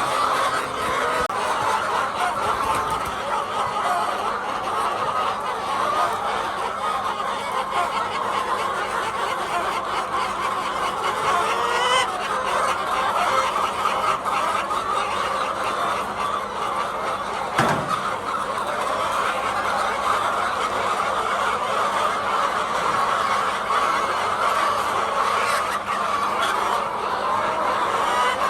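Many hens clucking and calling at once in a dense, continuous chatter, with one sharp knock about two-thirds of the way through.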